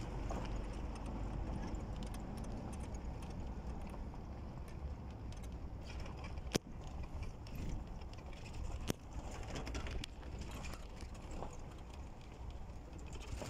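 A vehicle driving along a rough dirt track, heard from on board: a steady low rumble with light rattling, and two sharp knocks about halfway through, a couple of seconds apart.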